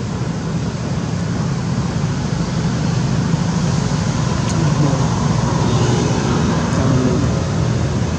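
Steady road-traffic noise: vehicle engines running with a low hum, growing slightly louder about halfway through.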